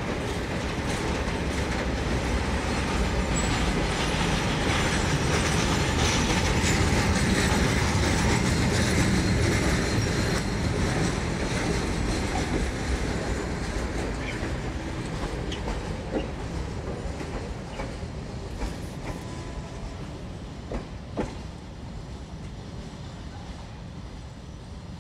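Loaded freight train's wagons rolling slowly past, steel wheels clacking over the rails. The rumble is loudest about eight seconds in, then fades as the end of the train passes and moves away, with a few sharp clicks in the second half.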